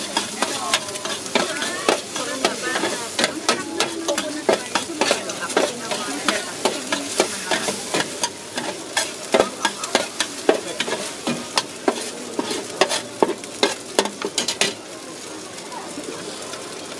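Instant noodles and vegetables sizzling on a large flat metal pan as a metal spatula scrapes and clacks against it in quick, uneven strokes. The strokes stop about fifteen seconds in, leaving a softer sizzle.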